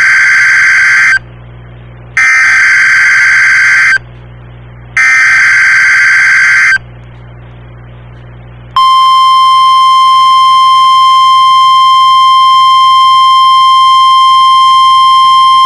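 Emergency Alert System SAME header: the digital data burst sounds as a harsh buzzy squawk, three bursts about a second apart. About 9 s in, a single steady high alert tone starts and holds, typical of the NOAA Weather Radio 1050 Hz warning alarm, signalling the alert before the spoken message.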